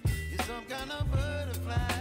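Background music with drum hits, a steady bass line and a pitched melody.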